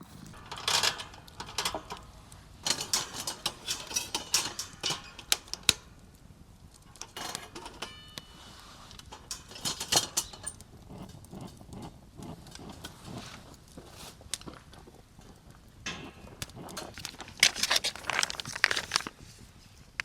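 Several bouts of rustling and crinkling with many small sharp clicks, as of objects being handled, with quieter gaps between.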